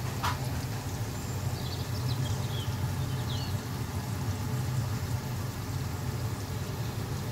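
Beef curry bubbling gently in a pot, over a steady low hum, with a few faint high chirps in the first half.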